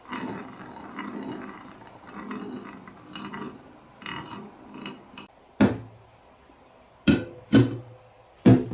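Marbles rolling and rattling along a marble run for about five seconds. Then come four sharp clacks, spaced out, each with a short ring, as marbles drop and strike the track and cans.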